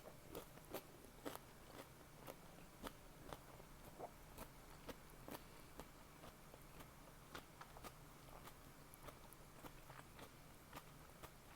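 Close-miked chewing of a crunchy salad with beef tongue: quiet, crisp crunches about twice a second.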